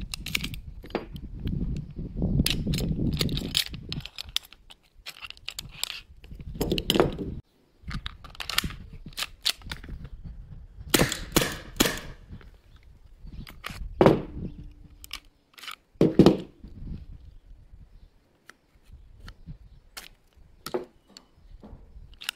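Clicks and clacks of a BB pistol's plastic and metal parts being handled and fitted together, then two sharp pops from an Umarex Beretta M9A3 CO2 BB pistol about two-thirds of the way through, the first followed by a short ringing tone. More handling clicks follow near the end as the pistol is taken apart.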